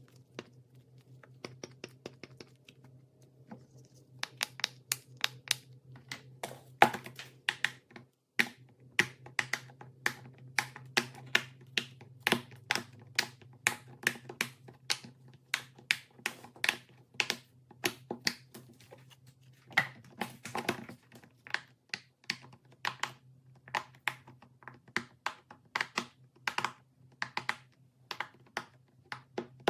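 Quick, irregular clicks and taps, sparse at first and then several a second from about four seconds in, over a steady low hum.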